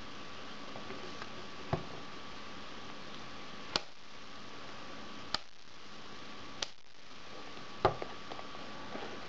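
Hard plastic action figures being handled, giving about five sharp clicks and clacks of plastic a second or so apart, the loudest near the end, over a steady background hiss with a faint hum.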